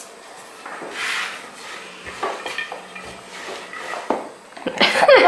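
Wooden rolling pin rolling and rubbing over floured dough on a wooden pastry board, with scattered light knocks of wood on wood. The sounds grow loudest near the end.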